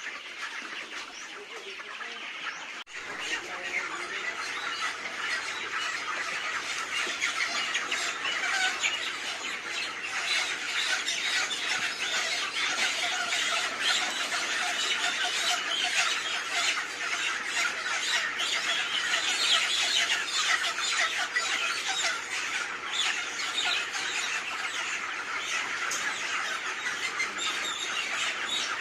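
A large flock of chickens squawking and screeching all at once in a dense, continuous din, the distress calls of birds being caught by the legs. About three seconds in, it turns louder and thicker.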